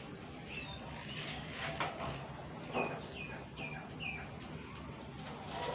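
A small bird chirps a handful of short, high notes, each quickly bending down in pitch, spread over a few seconds. A couple of light knocks come in between, around the middle.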